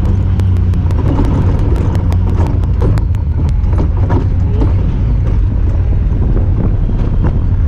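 Honda Talon 1000R side-by-side's parallel-twin engine running steadily under way, a loud low drone. A rapid, even ticking, about six clicks a second, rides over it and stops about halfway through.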